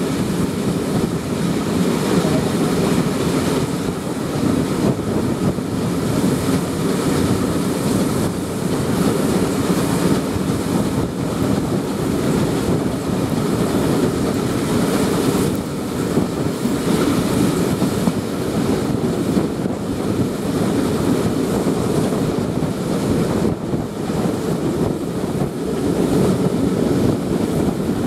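Steam-hauled passenger train running at speed, heard from an open carriage window: a steady rumble of wheels on rail with wind buffeting the microphone.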